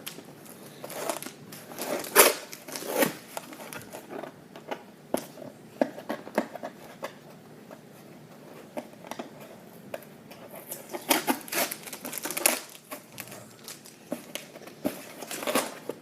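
Packing tape being picked at and peeled off a cardboard toy box by hand, with irregular crackles, small rips and rustling of the packaging. The sounds come in clusters, with a quieter stretch in the middle.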